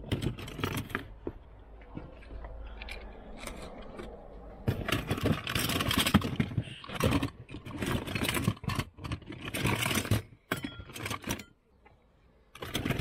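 Plastic toys clattering and scraping in a cardboard box as a hand rummages through them, in irregular bursts with a short lull near the end.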